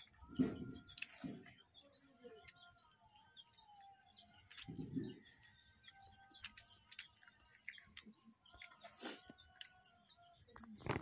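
Faint birds chirping and twittering in the background. Over them come scattered soft clicks and a few brief low sounds from people eating daal and rice with their hands off steel plates.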